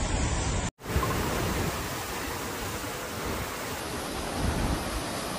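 Muddy floodwater cascading down a falls, a steady rushing noise, cut off briefly under a second in and followed by the steady rush of a swollen, fast-flowing river.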